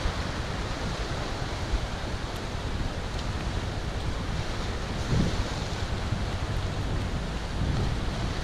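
Steady rushing noise of wind and sea, with wind buffeting the microphone in a low, fluttering rumble.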